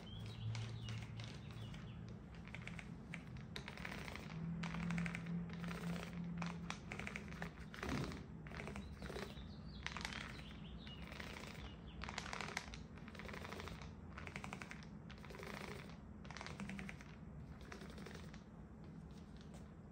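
A 4-inch microfiber mini paint roller rolled back and forth through wet paint on a wooden dresser top, each stroke a short burst of fast crackling ticks, the strokes coming roughly twice a second.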